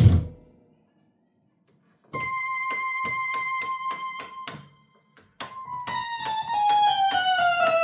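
Philips Philicorda 22GM755 organ, a transistor organ with valve amplification and spring reverb, being played. A passage dies away at the start. After a pause, one high note is repeated rapidly, about four times a second. After another short pause, a repeated-note figure steps downward by about an octave.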